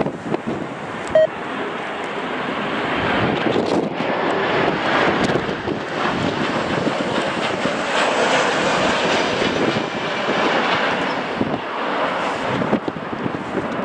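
Airliner's jet engines passing on landing approach: a rushing roar that builds over the first few seconds and stays loud. A short sharp click sounds about a second in.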